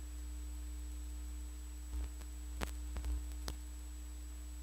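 A few sharp mechanical clicks and soft thumps from a Hitachi TRK-8240 boombox's cassette deck as its keys are worked and the cassette door opens for the tape, over a steady low hum.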